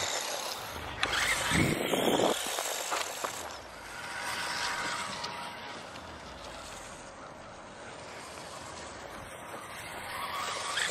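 Small electric RC car (a ROS-controlled donkey car) driving over a grass lawn: a steady running noise of motor and tyres, louder in the first two or three seconds, with a low rumble about two seconds in.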